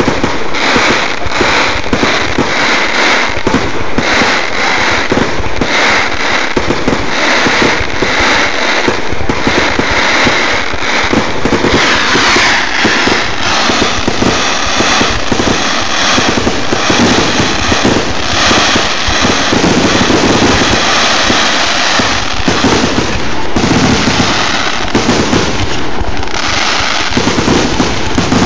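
Fireworks going off in a dense, continuous barrage of bangs and crackles, loud throughout, the pops coming too fast to count.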